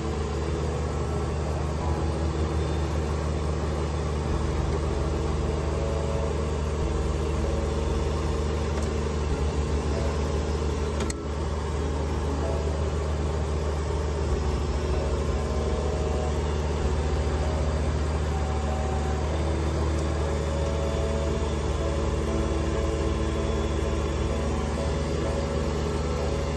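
Kubota BX2380 sub-compact tractor's three-cylinder diesel running steadily, driving a front-mounted Kubota BX2816 snowblower as it throws snow.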